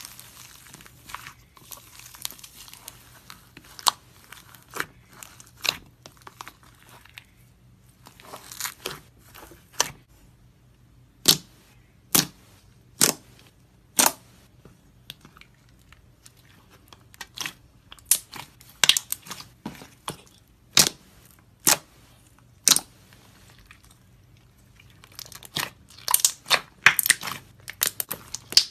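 Fingers squishing and poking thick slime, making irregular sharp pops and crackles, with runs of quick pops near the start and near the end.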